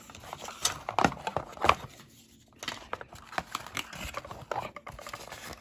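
Cardboard packaging and plastic parts handled by hand: irregular clicks, taps and light rustles as a cable is worked out of a cardboard box insert, with a short lull about two seconds in.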